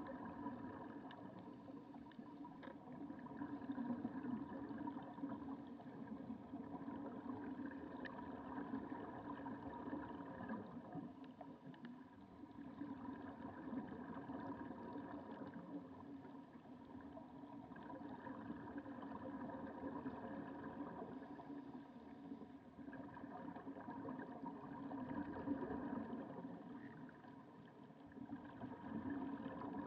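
Muffled underwater sound through a camera housing: a steady motor hum carried through the water, with the bubbling of divers' exhaled air rising and fading every few seconds.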